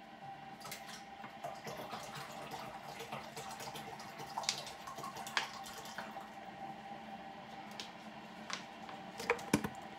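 Water being poured from plastic bottles into a Keurig coffee maker's water reservoir, with scattered clicks of the bottles being handled and a few sharper clicks near the end.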